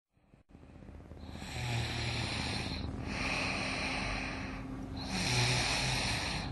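Song intro: hissing swells that rise and fall about every two seconds over a low hum, fading in from silence.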